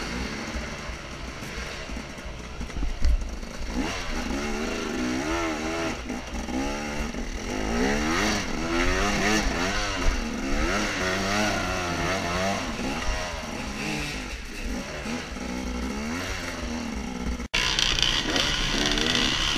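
Dirt bike engine revving on a trail ride, its note rising and falling quickly over and over with the throttle, with a couple of sharp knocks. Near the end there is an abrupt cut to louder engine noise.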